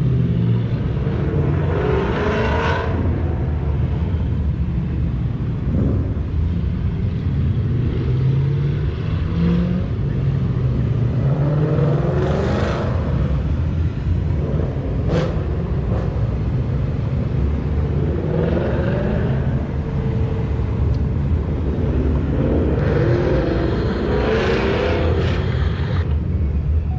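Ford Mustangs driving past one after another over a steady low engine rumble, with four passes swelling up and fading. There is one sharp click about halfway through.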